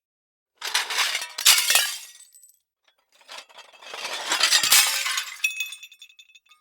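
Two glass-breaking sound effects. A crash comes about half a second in, with a second hit close behind it. After a short gap comes a longer shatter that ends in a run of small bright tinkles as the shards settle.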